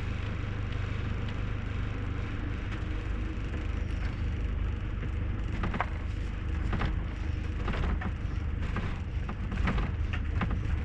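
Bailey Adamo motorhome driving slowly, with a steady low engine and road rumble. From about halfway through, irregular sharp crackling clicks come in over the rumble.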